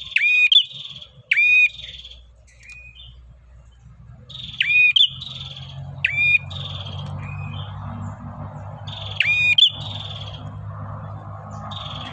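Male prenjak (prinia) singing its 'ngacor' calling song: short, sharp, loud phrases, each a hooked note with a buzzy trill, repeated every one to three seconds. A low steady hum comes in underneath about five seconds in.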